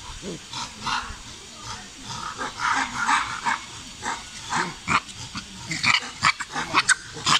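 Macaques giving short, harsh calls over and over in a squabble between monkeys, with a run of louder, sharper screeches near the end.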